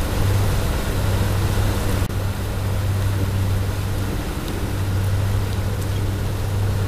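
Outboard motor running steadily at trolling speed, a constant low hum, under the rush of the boat's wake and wind.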